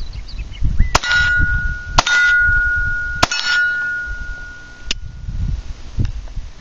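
Three .22 rimfire pistol shots about a second apart, each hitting a steel target that rings with a clear, sustained tone. Two fainter sharp cracks follow later on.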